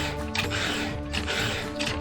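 Background music with a steady beat, over repeated rasping strokes of a chainsaw file guide working a saw chain's teeth, about one stroke every 0.7 s. The PFERD 2-in-1 guide carries a round file and a flat file together, so each stroke sharpens the cutter and lowers the depth gauge.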